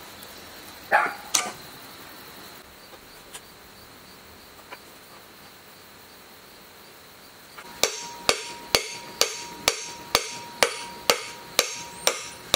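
Hammer blows on the metal housing of an electric motor, knocking it apart to get the end cover off: two sharp knocks about a second in, then from about eight seconds in a steady run of blows, about two a second, each with a short metallic ring.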